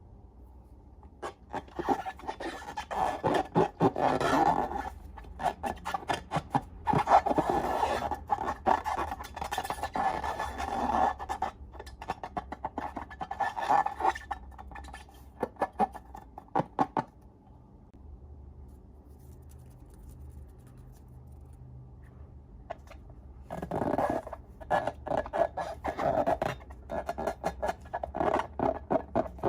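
Slime being squeezed and worked by hand: dense sticky crackling and squelching clicks in long bursts, with a quieter pause in the middle before the crackling resumes.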